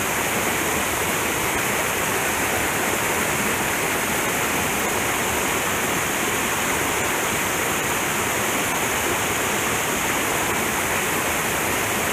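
Small, fast mountain stream rushing over rocks and little cascades: a steady, even rush of water.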